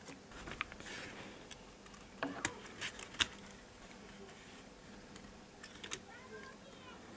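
Small sharp clicks and taps of a Sony DSC-W830 compact camera's thin metal inner frame and plastic parts being pried apart and handled, with a brief rustle about a second in; the sharpest click comes about three seconds in, and a few lighter clicks follow near the end. A faint steady hum runs underneath.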